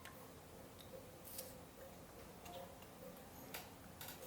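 Faint, irregular small clicks and ticks over quiet room tone.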